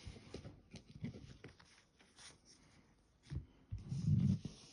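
Light handling sounds of trading cards and packaging being sorted on a table: scattered soft taps and rustles.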